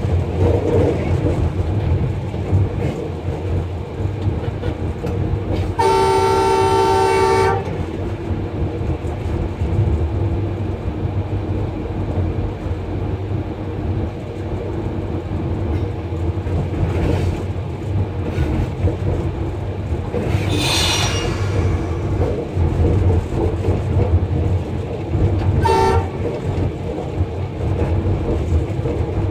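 Cab of a ZCU-30 diesel-electric locomotive under way: steady engine rumble and wheel-on-rail noise. The locomotive's horn sounds for about a second and a half about six seconds in, and again as a short toot near the end.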